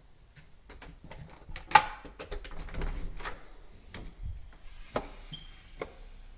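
An interior door being unlatched and swung open: a run of clicks and knocks, the sharpest just under two seconds in, with another sharp knock about five seconds in.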